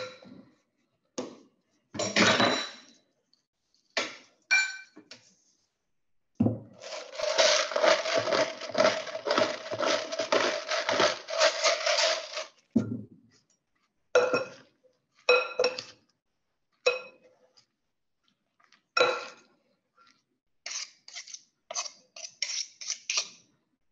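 Kitchen utensils clinking and ringing against a metal tray and bowls as roasted leek is added to a salad. In the middle comes about six seconds of rapid grinding clicks: a spice mill turned to add salt and pepper. Near the end, a quick clatter of serving spoons tossing the salad.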